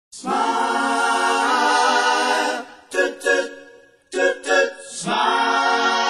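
Background song: voices singing long held notes, broken by a short run of quick notes about three seconds in, then holding a long note again.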